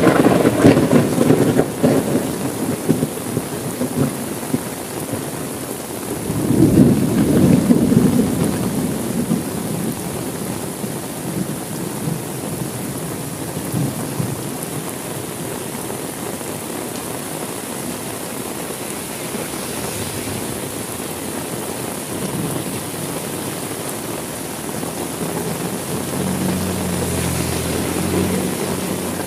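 Heavy rain falling steadily in a thunderstorm. A loud thunderclap at the very start rumbles away over a couple of seconds, and a second rolling rumble of thunder comes about six seconds in.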